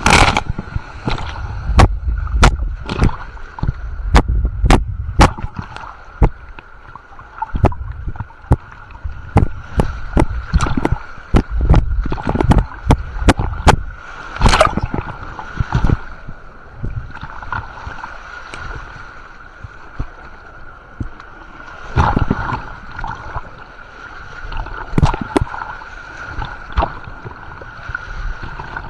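Water rushing and splashing down a water slide, with frequent sharp knocks and low thumps that come thickest in the first half and again now and then later.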